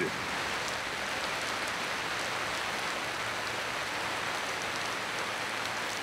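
Steady rain falling on brick paving stones, an even hiss at a constant level.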